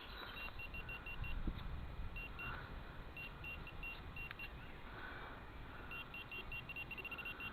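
Metal detector beeping: short, high-pitched tones in quick runs of several beeps, the runs coming faster near the end, as the coil passes over a buried metal target.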